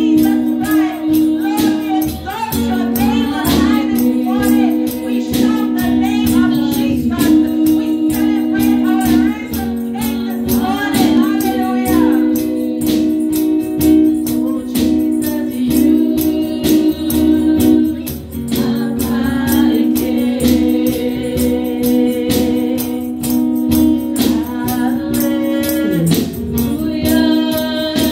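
Live gospel worship music: a woman leads the singing into a microphone with female backing singers, over held chords and a steady beat.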